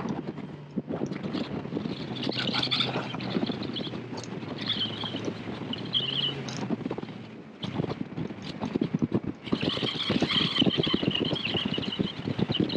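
Bass boat running across choppy water, with its outboard motor humming steadily and the hull slapping on the waves, and wind on the microphone. The engine hum drops out about seven and a half seconds in, leaving the wave slaps and wind.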